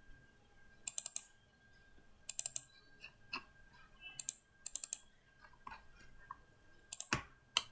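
Computer mouse clicking in short quick clusters of a few clicks each, coming every second or so, with a louder cluster near the end. A faint steady high hum lies underneath.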